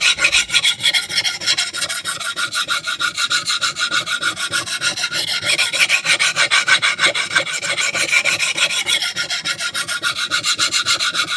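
Knife blade's steel edge scraped rapidly back and forth on a coarse diamond hone in quick, even strokes, a loud gritty rasp. This is aggressive coarse-grit sharpening that removes as much material as possible to raise a burr.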